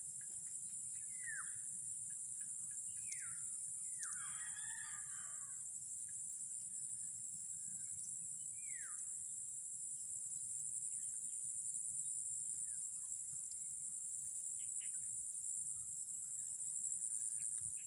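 Steady high-pitched drone of insects, with a few short calls from a bird that slide downward in pitch, about four of them in the first half.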